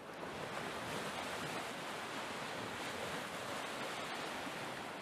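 Steady rushing noise of ocean surf, swelling up at the start and easing off near the end.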